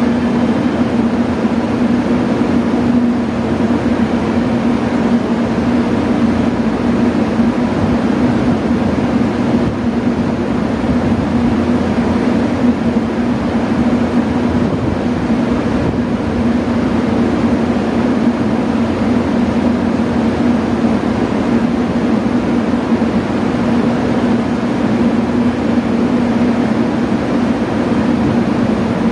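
JR Kyushu 883-series electric train standing at the platform, its on-board equipment giving a steady hum with a constant low drone and an even hiss.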